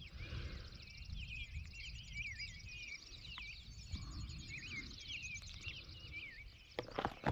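Several songbirds singing, with short warbling chirps repeating over and over and a faint rapid high trill, over a low steady rumble.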